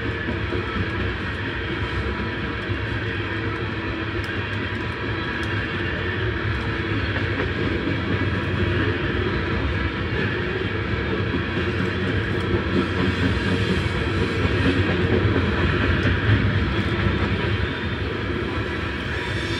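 Freight train of tank cars rolling past: a steady rumble of steel wheels on the rail, swelling slightly about three-quarters of the way through.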